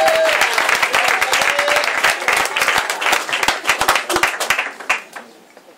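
Audience applauding, the dense clapping thinning out and dying away about five seconds in.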